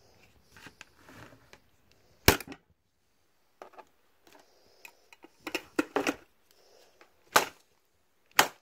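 A series of sharp, irregular clicks or taps close to the microphone. One loud tap comes a little over two seconds in, a quick cluster of four follows a little past halfway, and single taps come near the end.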